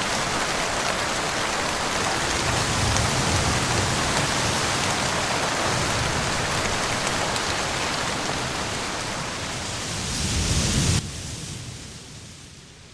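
Heavy rain falling, a steady even hiss that drops suddenly about eleven seconds in to a fainter hiss.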